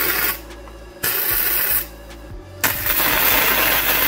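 Electric arc welding crackling in three runs: a brief one at the start, one of under a second about a second in, and a longer steady run from near the three-second mark.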